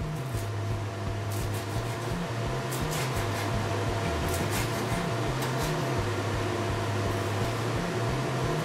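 Kitchen extractor hood fan running with a steady hum, over short runs of quick knife taps chopping parsley on a wooden cutting board.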